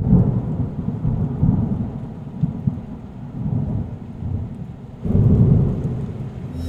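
Thunder rumbling over rain, swelling into a louder peal about five seconds in.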